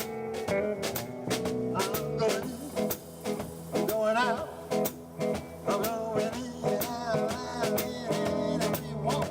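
Live music from a small trio: guitar and a lead line with bending, wavering notes over a drum kit's steady, regular hits.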